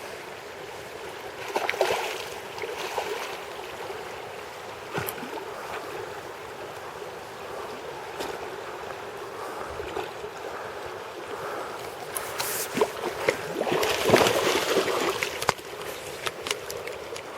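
Steady rush of river water with louder bursts of splashing about two seconds in and again from about thirteen to fifteen seconds in, the hooked chum salmon fighting at the surface, with a few sharp clicks scattered through.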